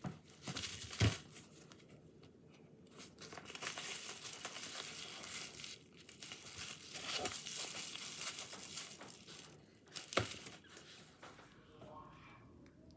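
Crinkling and tearing of a shipping package being opened by hand, with a sharp knock about a second in and another later on.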